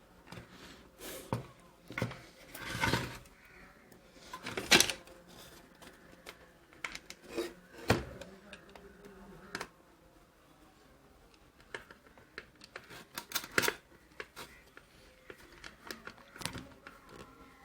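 Nuts being tightened onto a juicer motor's mounting in its plastic body: scattered small metal clicks and scrapes of the tool and parts being handled, with the sharpest knocks about 5 and 8 seconds in and a quick cluster near 13 seconds.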